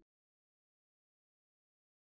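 Silence: the audio track is digitally silent.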